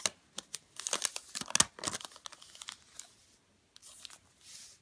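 A strip of origami paper being folded and creased into an accordion, crinkling and crackling as the folds are pressed. The crackles are busiest in the first two seconds, then thin out to a few soft rustles near the end.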